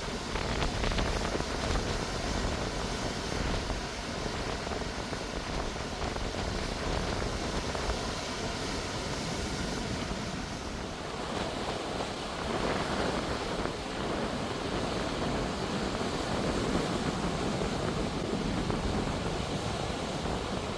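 Ocean surf breaking and washing in, with wind buffeting the microphone; the surf swells louder twice in the second half.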